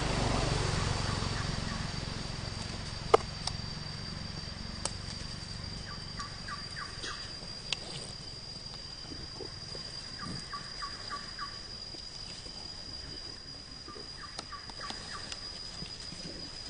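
A bird calls in three short runs of rapid, evenly spaced notes, about six, ten and fourteen seconds in, over a steady high-pitched whine. A few sharp clicks come through, the loudest about three seconds in, and a low rumble fades away over the first couple of seconds.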